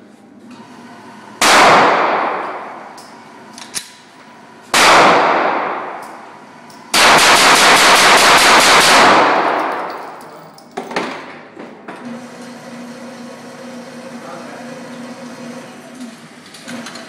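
Glock 17 fourth-generation 9mm pistol fired on an indoor range: two single shots a few seconds apart, then about eight shots in quick succession, each with a long echo off the range walls. Afterwards a steady electric hum as the target carrier runs the paper target back.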